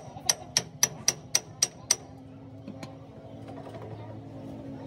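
Hammer tapping on the steel pinion housing of a truck rear differential: about eight sharp, ringing metal-on-metal blows in quick even succession, stopping about two seconds in, after which only a faint low hum remains.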